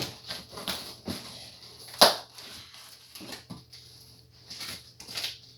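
Packaging being handled and opened: irregular crinkling and rustling, with one sharp snap about two seconds in.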